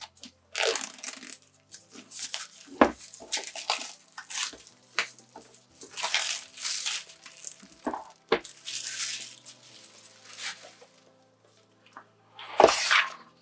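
Packaging wrap on a journal being cut with sharp scissors and pulled off, in repeated crinkling and tearing rustles with a few knocks of the journal on the table. Faint background music underneath.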